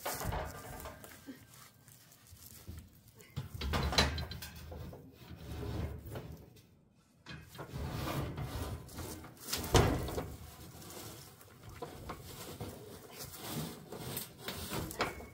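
A sheet of steel plate being worked out of a stack of steel stock: irregular scraping as it rubs against the bars, with a couple of sharp knocks, one about four seconds in and a louder one near ten seconds.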